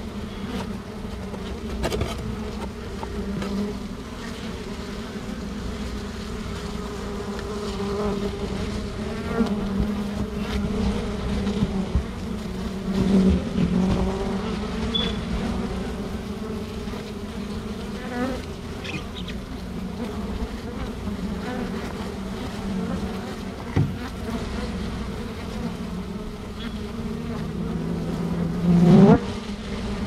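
Honeybee colony buzzing as a steady low hum at the exposed combs, with a louder buzz rising in pitch near the end.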